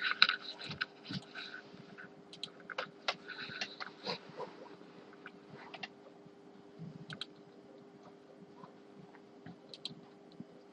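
Scattered computer mouse clicks and keyboard taps, busiest in the first few seconds and sparse after, over a steady low hum.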